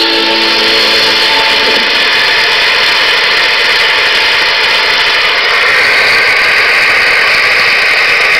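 Concert audience applauding at the end of a live song. The last notes of the music die away in the first two seconds, then steady applause that swells slightly in the second half.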